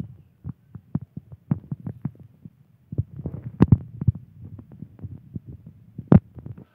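A run of soft, low thumps and knocks, a few a second and unevenly spaced, with two sharper knocks about three and a half and six seconds in.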